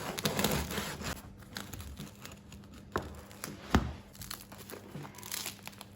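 Crinkling and rustling, densest in the first second, with scattered small clicks and two sharp knocks about three and four seconds in.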